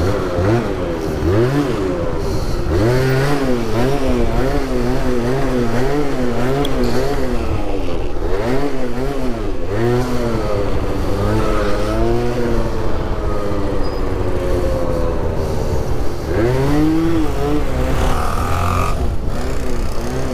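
Two-stroke 50cc scooter engine revving up and down over and over as it rides, its pitch swinging about once a second, with a longer climb about halfway through.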